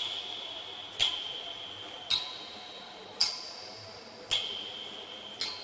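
Water dripping into a concrete cistern, one drop about every second, each a sharp plink with a short ringing tone whose pitch changes from drop to drop.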